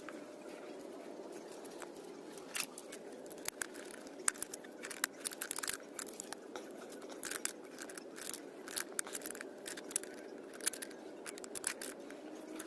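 Irregular clicks, scrapes and crackles of hand work on parts, sharp and uneven from a couple of seconds in, over a steady low hum.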